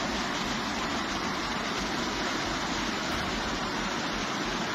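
Fast muddy floodwater rushing in a torrent: a steady, loud rush of water that cuts off suddenly near the end.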